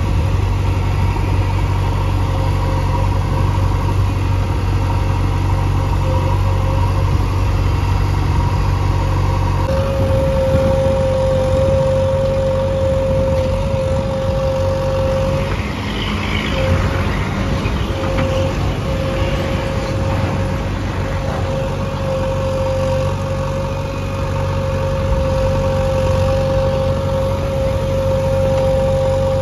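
JCB 3DX backhoe loader's diesel engine running steadily while the backhoe arm digs and lifts soil, with a steady whine that grows stronger about a third of the way in. A brief rasping noise comes just past the middle.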